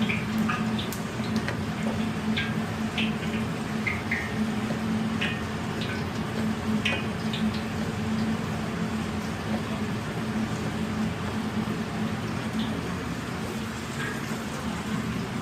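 Water running steadily into a kitchen sink, with scattered short light clicks and splashes over a constant low hum.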